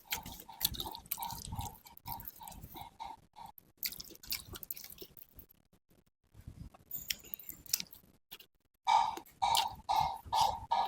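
Close-miked chewing of a mouthful of food, steady at about three chews a second with small crisp clicks. The chewing eases off midway and comes back louder near the end.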